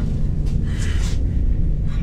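A loud, steady low rumble, with faint hissy swells about half a second and a second in.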